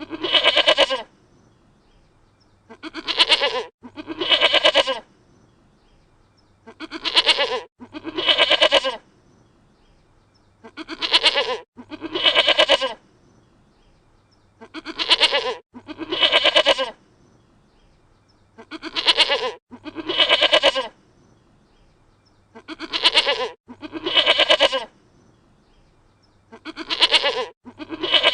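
Dutch goat bleating: pairs of wavering calls about a second long, repeated at a steady pace of about one pair every four seconds.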